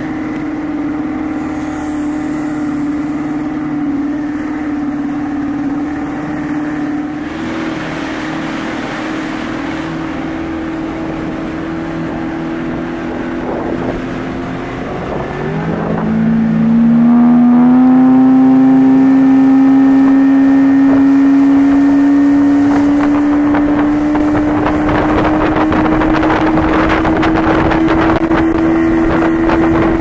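Bass boat outboard motor running at speed with a steady drone. About halfway through the pitch dips, then climbs steadily as the motor gets louder, and wind rushes over the microphone near the end.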